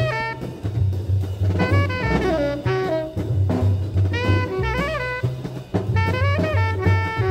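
Jazz background music: a saxophone plays a bending melodic line over bass and a drum kit.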